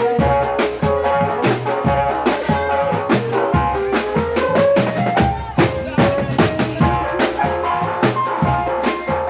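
Live band music: a steady drum beat with bass drum and snare under a bright melody line.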